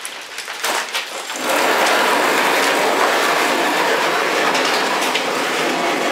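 A pickup truck bed being pushed and dragged across the ground: a couple of knocks, then from about a second and a half in a steady, loud, rough scraping.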